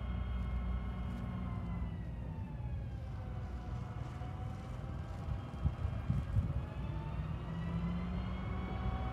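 Diesel-electric freight locomotive running with a low engine rumble and a high whine. The whine falls in pitch over about two seconds, holds low, then climbs again near the end as the engine's power is eased off and brought back up. A few low thumps come in the middle.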